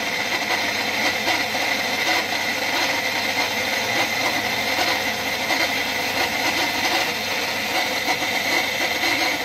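YORK PS-100 NA jet water pump running with a steady, loud mechanical noise and a high whine. The noise comes from its worn, rusted motor bearing.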